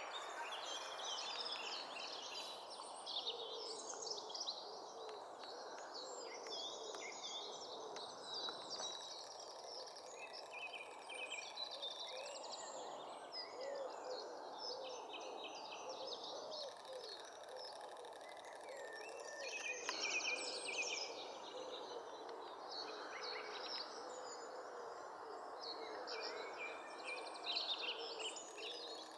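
Small birds chirping and singing in many short, high-pitched phrases, over a steady background hiss.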